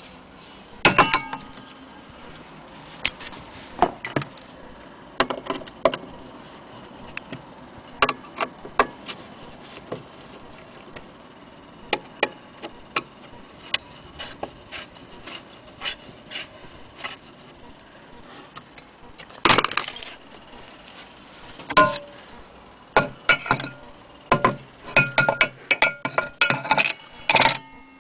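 Irregular clicks, taps and metallic clinks from the metal fittings and wooden cabinet of an HMV gramophone being handled, coming thicker near the end; a few of the clinks ring briefly.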